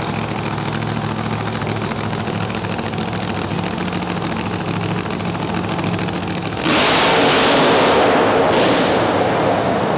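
Quarter-mile dragster engine idling steadily, then about two-thirds of the way in a sudden, much louder blast as the throttle is opened, held for the last few seconds.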